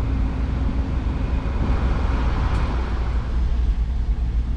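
Truck engine running with a steady low rumble, heard inside the cab; a hiss swells up and fades away in the middle.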